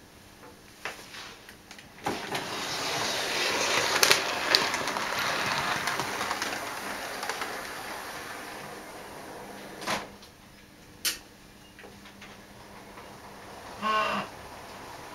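Model railway train running over the layout's track: a rolling rumble of wheels and motor that builds over the first few seconds and then slowly fades, with a few sharp clicks as it passes over rail joints and points. Near the end there is a short pitched sound.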